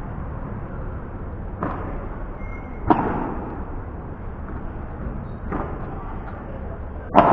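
Padel rally: four sharp knocks of the ball being hit and bouncing, spaced unevenly a second or more apart, the loudest about three seconds in and near the end, over a steady low background noise.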